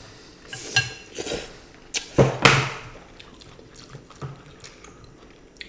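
A few crisp, crunchy bites and chewing of a fried chicken wing, with the loudest crunch about two seconds in.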